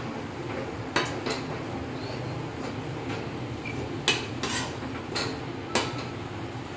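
Metal slotted spatula scraping and clinking against a metal kadhai while stirring a thick grated-coconut, sugar and milk mixture for coconut laddoo. Sharp clinks come about a second in and several more in the second half, over a steady low background hum.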